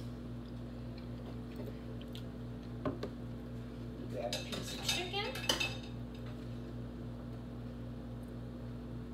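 Metal serving utensil clinking and scraping against a stainless steel pot and plate while food is dished up. There is a single sharp clink about three seconds in and a busier run of scrapes and clinks between about four and six seconds, over a steady low hum.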